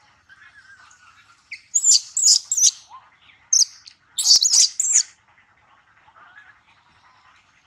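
Birds chirping: a run of short, loud, high-pitched chirps from about one and a half seconds in, then a second cluster around four to five seconds, over faint softer twittering.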